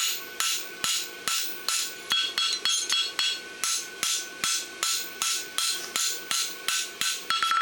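Steady hand-hammer blows on a hot steel barshoe branch over an anvil, about two to three strikes a second, each with a short metallic ring, as the branch is flattened along its length.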